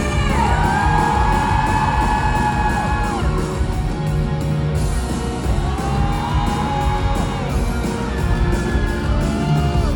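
Live pop-rock band music played loud in a hall, a steady beat under two long held lead notes, a lyric-free stretch between sung lines.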